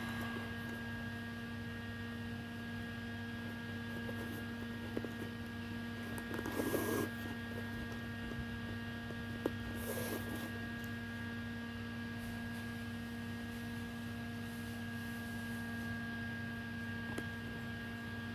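Steady electrical hum made of several constant tones, with a couple of brief faint rustles near the middle.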